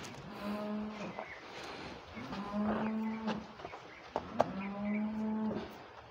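Low mooing calls at a steady pitch, each about a second long, repeated three times about two seconds apart.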